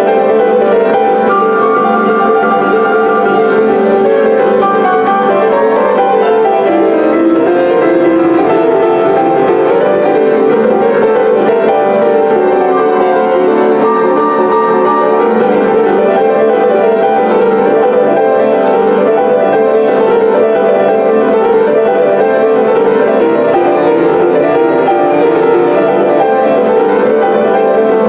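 Solo Soldera grand piano playing boogie-woogie, a dense, unbroken stream of notes at a steady loudness.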